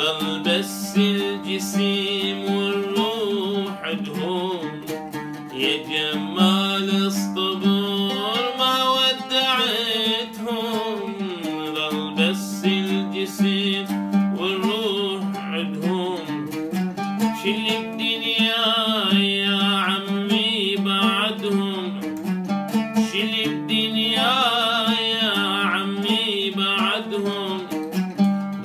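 Oud played with plucked notes while a man sings an Arabic song over it.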